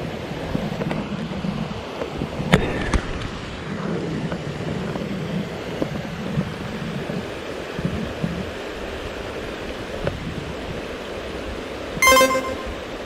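Rushing river water with wind buffeting the microphone. Two sharp clicks come about two and a half seconds in, and a short pitched squeal sounds near the end.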